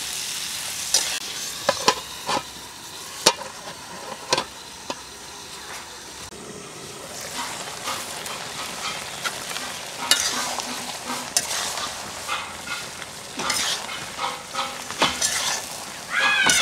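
Squash cubes sizzling in a metal karai while a metal spatula stirs them, with irregular clicks and scrapes of the spatula against the pan over a steady hiss.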